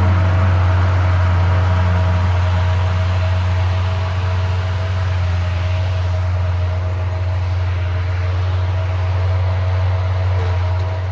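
Skid steer engine running steadily at a constant speed: a deep, even drone with a faint steady whine above it.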